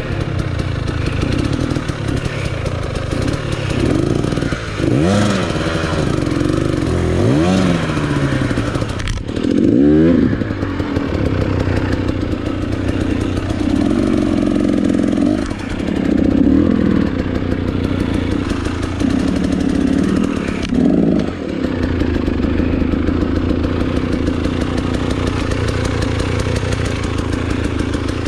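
Enduro dirt bike engine under load at low speed. The throttle is blipped and the revs rise and fall several times in the first ten seconds, then come in short bursts of throttle.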